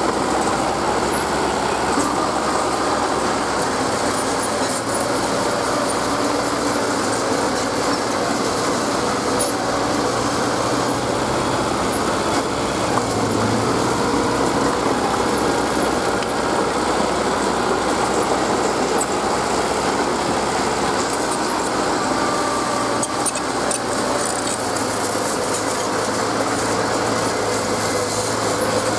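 Small crawler bulldozer's diesel engine running steadily under load as it pushes and spreads dirt.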